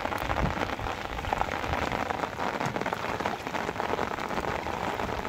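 Heavy rain falling on shallow floodwater: a steady, dense patter of drops.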